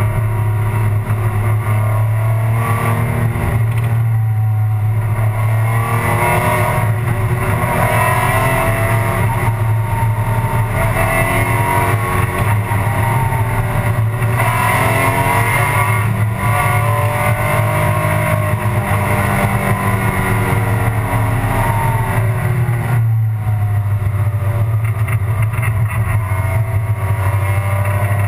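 Alfa Romeo 156 GTA's V6 race engine heard from inside the cabin at speed, its pitch rising and falling repeatedly as it revs up and shifts, over a steady low drone.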